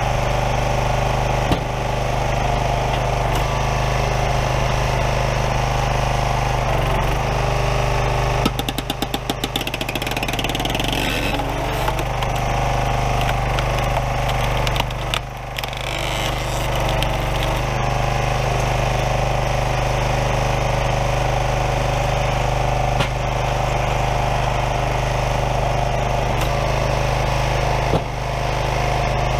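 Small gas engine of a Craftsman 27-ton log splitter running steadily while firewood rounds are split, with a rapid rattling run about eight to ten seconds in and a few sharp knocks.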